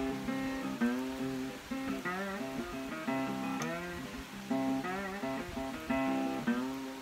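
Background music: a guitar playing a melody in short phrases, some notes bending in pitch.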